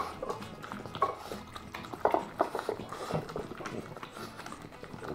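Two French bulldogs eating from their bowls: irregular chewing and smacking, with short clicks of food and muzzles against the bowls.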